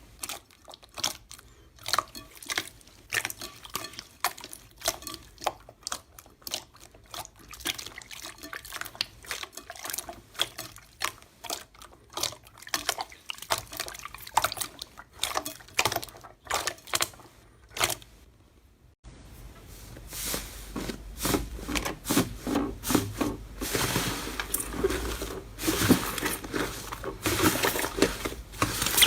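Slime being squished and pressed, making wet clicks and pops several times a second. About nineteen seconds in it cuts to a louder, denser run of sticky popping over a low rumble.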